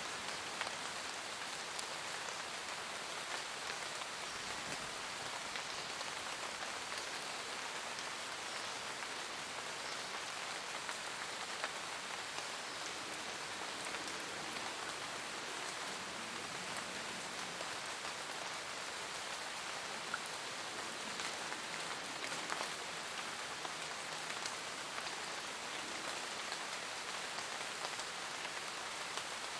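Steady rain falling in a forest, an even hiss with scattered individual drops ticking on leaves and surfaces.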